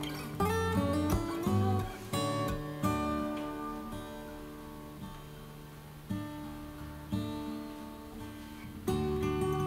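Background music: an acoustic guitar playing gentle plucked notes and strummed chords that ring out, with a louder chord near the end.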